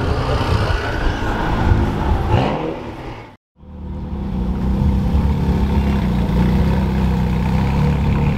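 Car engines running: an engine revving briefly, then, after a sudden short break about three and a half seconds in, a deep, steady engine rumble.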